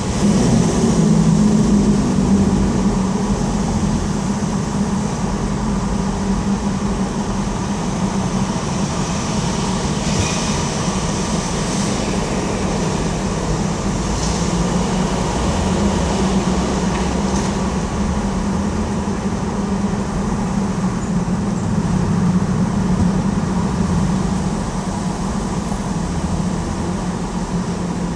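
Continuous rumble of traffic on the Queensboro Bridge in New York, with a steady low hum underneath that swells a little near the start and again about three-quarters of the way through.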